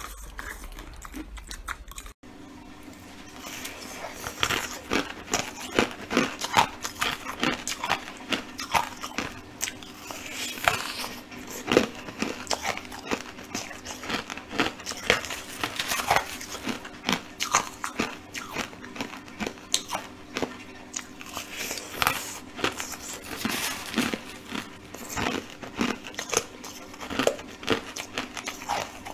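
Chewing and crunching mouthfuls of crushed coloured ice, with many sharp crunches each second, starting about two seconds in. A faint steady hum lies underneath.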